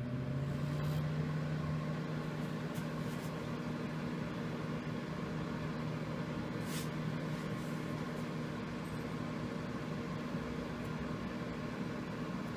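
Microwave oven running with a steady hum, its pitch rising briefly in the first second as the fan spins up, then holding even.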